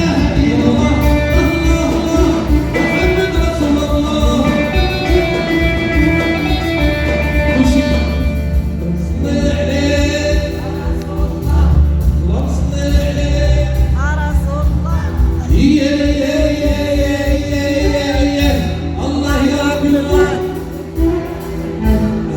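A Moroccan Hassani (Saharawi) song performed live: singing over instrumental accompaniment with a steady low beat.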